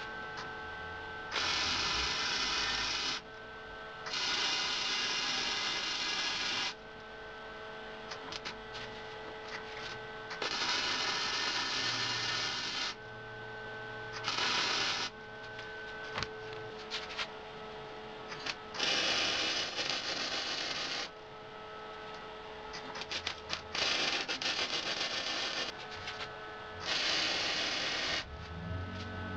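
Flux-core wire-feed welder laying a series of short welds: seven bursts of arc noise, each one to three seconds long, with a steady hum in the pauses between them.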